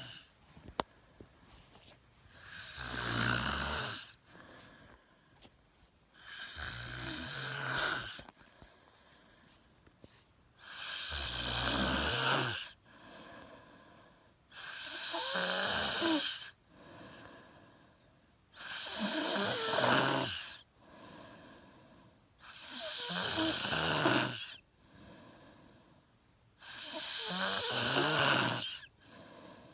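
A sleeper snoring: seven loud, low snores about four seconds apart, with quieter breaths between them.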